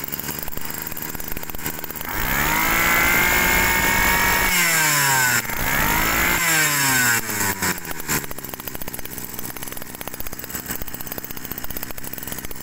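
Kawasaki TG18 two-stroke brush-cutter engine, freshly pull-started with a new two-needle carburettor, running with no load. It idles, is revved high for about two and a half seconds, drops, is revved again briefly, then settles back to a steady idle.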